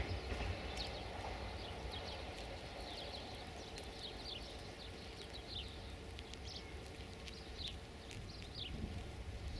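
Faint low rumble of a Siemens Desiro diesel multiple unit moving away, slowly fading. Birds chirp throughout over the top.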